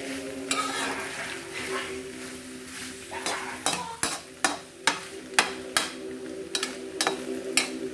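A large metal spoon stirring penne and vegetables in a wok: scraping at first, then from about halfway sharp knocks of the spoon against the pan, roughly two a second, over a steady low hum.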